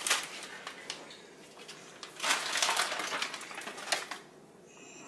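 Plastic packaging of a corned beef brisket crinkling and rustling as the meat is worked out of it, with brine running into the sink. The loudest stretch comes about two seconds in and lasts around a second.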